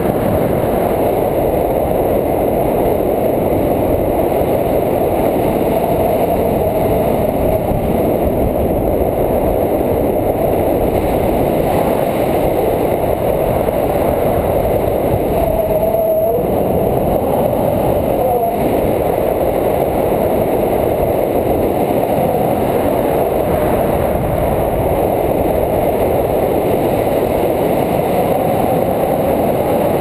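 Loud, steady wind rushing over an action camera's microphone in flight on a tandem paraglider.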